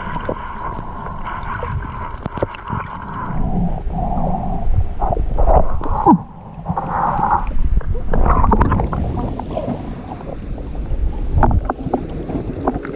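Underwater sound from a camera held just below the surface while snorkelling: water gurgling and sloshing around the housing, a low rumble, and scattered clicks. It swells in the middle and dips briefly a little after six seconds.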